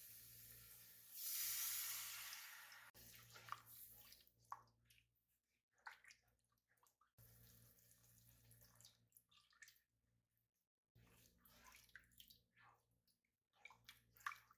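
Water running briefly, about a second in, for roughly two seconds, followed by faint scattered clicks and light knocks of kitchen utensils and dishes being handled.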